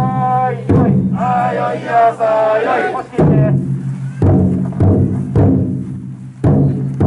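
Large taiko drum inside a futon daiko festival float struck about once a second, each beat ringing on. Over the first three seconds the carriers chant in unison.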